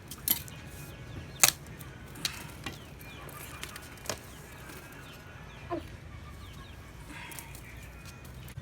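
Several sharp clicks and taps a second or so apart, the loudest about a second and a half in, with chickens clucking faintly in the background.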